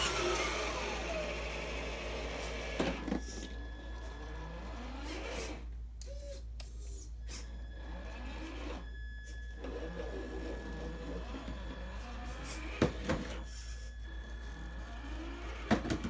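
Electric motor of a Traxxas TRX-4 Tactical Unit RC crawler whining as it crawls over obstacles, its pitch rising and falling with the throttle and stopping briefly twice. A few sharp knocks come from the truck striking the obstacles.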